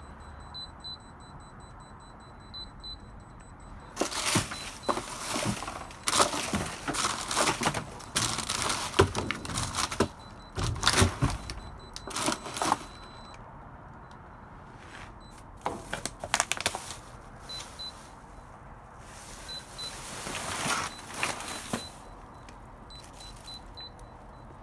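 Rummaging through dumpster trash: bags, boxes and loose items rustling and clattering in bouts. Under it, faint high-pitched electronic beeps sound now and then from small beeping tags buried in the trash, which the finder guesses are inventory-control devices.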